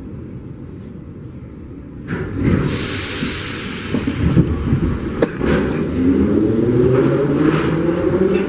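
Metro train starting off from a station: a hiss about two seconds in, a click, then the electric traction motors whining and rising steadily in pitch as the train accelerates away.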